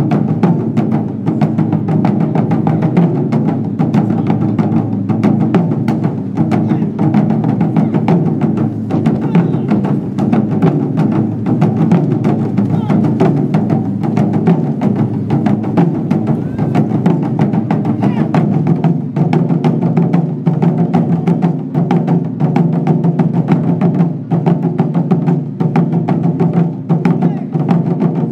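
Taiko ensemble of several players beating chū-daiko barrel drums with wooden bachi sticks in a dense, unbroken run of strikes.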